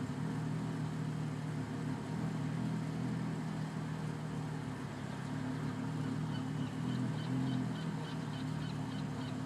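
Twin-turbocharged Lexus IS250's V6 idling roughly, its low running note wavering unevenly. From about six seconds in a faint high chirp repeats about three times a second.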